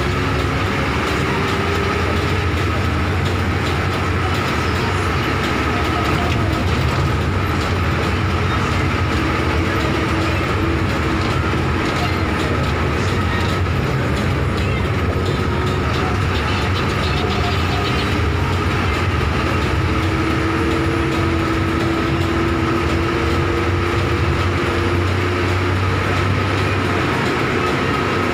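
Bus engine and road noise, heard from inside the moving bus: a steady, loud drone with faint engine tones that slowly drift in pitch.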